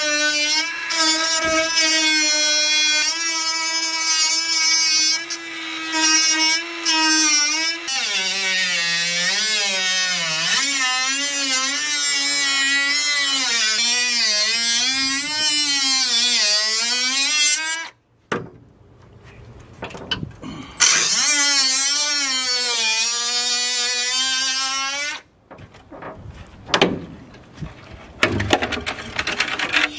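High-speed cut-off wheel whining as it cuts through the rusted steel lower quarter panel of a Chevy Camaro. Its pitch holds steady at first, then wavers and sags as the wheel bites into the metal. It stops, runs again for a few seconds, then stops, followed by a few light knocks as the cut section comes loose.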